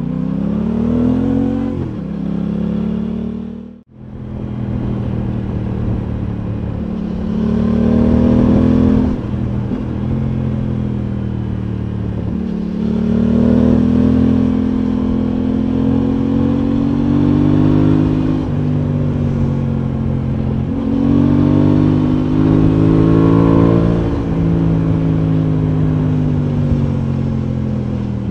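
Aprilia Tuono 660 motorcycle's parallel-twin engine under way, its note rising and falling over and over as the rider accelerates and eases off through the bends. The sound cuts out for a split second about four seconds in.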